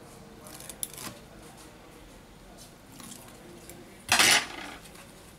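Light handling noises as fingers work at the edge of the tablet's display panel, then, a little after four seconds in, a short metallic clatter of a metal tool being put down on the workbench; the clatter is the loudest sound.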